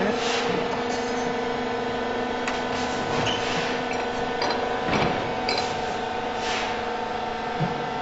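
Truck-mounted concrete mixer pump running with a steady, pitched machine hum, and a few short noisy swishes over it.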